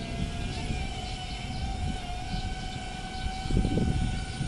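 DJI Avata 2 FPV drone's propellers humming as it hovers slowly back toward the pilot, a steady whine that rises slightly in pitch in the first couple of seconds. Wind buffets the microphone in low gusts, loudest near the end.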